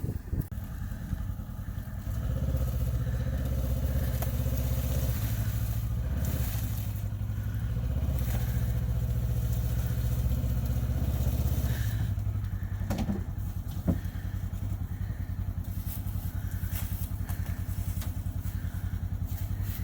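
UTV engine running. It rises in speed about two seconds in, holds for about ten seconds, then drops back to a steady idle. There is a single sharp knock shortly after.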